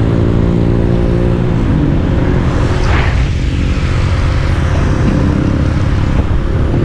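A small Honda motorcycle's single-cylinder engine running while riding, its note shifting about a second and a half in, over wind rush and the hiss of tyres on a wet road.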